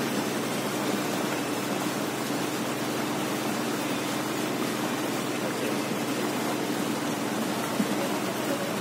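Small motorboat under way on a lake: a steady rushing noise of water and air going past, over a constant low engine hum.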